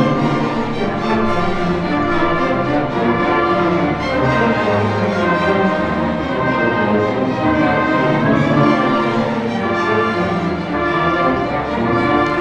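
School symphony orchestra playing, with strings and brass sounding together in sustained chords.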